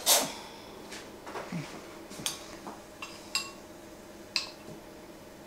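Metal cutlery rattling as a kitchen cutlery drawer is pulled open and a tablespoon is taken out. This sharp clatter right at the start is the loudest sound. Then come a few light, ringing clinks of a metal spoon against a ceramic bowl as melted butter is spooned out.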